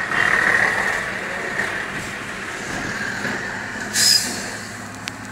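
Steady engine and road noise heard from inside a moving vehicle's cabin. A short, loud hiss comes about four seconds in, and a small click near the end.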